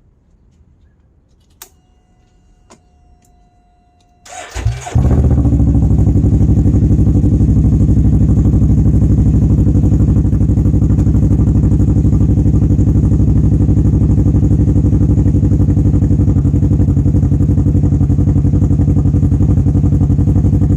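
Can-Am Ryker three-wheeler started: after a few quiet seconds with a couple of clicks, the starter cranks briefly about four seconds in and the engine catches, then idles steadily and loudly.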